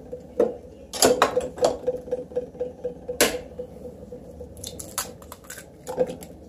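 An egg being tapped and cracked open into a plastic pancake batter dispenser: a series of light taps and clicks, the sharpest about three seconds in, then smaller clicks as the shell is pulled apart.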